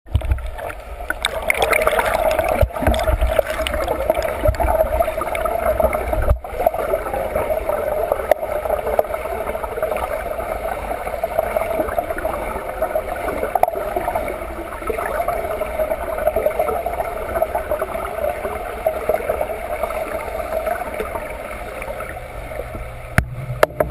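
Muffled, continuous rushing and gurgling of water recorded underwater, the churn of a swimmer's strokes and kicks passing the camera, with a brief break about six seconds in.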